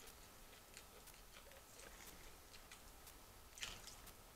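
Faint eating sounds: small clicks and ticks of chewing and of fried chicken being pulled apart by hand, with one louder crackle about three and a half seconds in.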